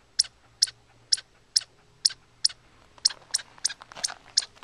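Sharp, high chip calls about twice a second, coming faster and less evenly near the end: a chipmunk's alarm chipping.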